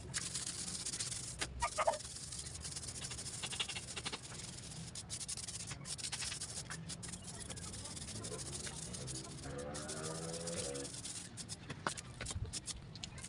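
Intermittent scraping and clicking of a hand tool and hand working on woven rattan cane webbing. A short pitched call sounds about ten seconds in.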